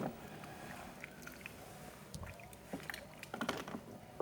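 Faint, scattered soft wet squishes and small clicks from hands scrubbing a toddler's soapy skin during a bath.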